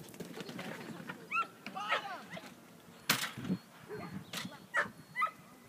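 A dog barking and yipping in short, separate calls at irregular intervals, the loudest about three seconds in.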